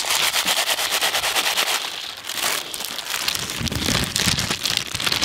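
Lay's potato chips crackling and crunching as they are poured from opened packets onto a large metal tray, a dense patter of small crisp clicks that comes in waves.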